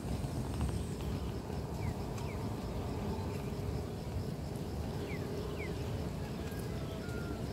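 Steady low outdoor rumble, with a few faint short chirps about two and five seconds in and brief thin tones near the end.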